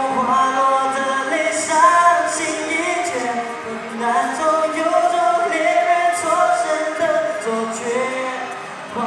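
A male singer sings a Mandarin song solo into a handheld microphone, holding long notes that glide in pitch, over musical accompaniment.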